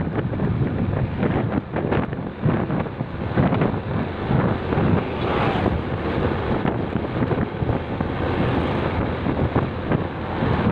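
Wind buffeting the microphone in uneven gusts, a loud low rush with no steady tone.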